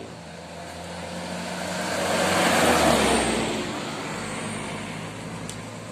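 Container truck driving past close by: engine and tyre noise swell, peak about three seconds in, then fade as it moves away.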